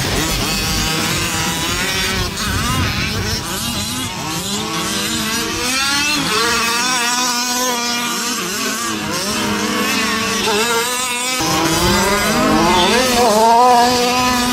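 Several radio-controlled race cars running together, their motors whining in overlapping pitches that rise and fall as the throttles open and close.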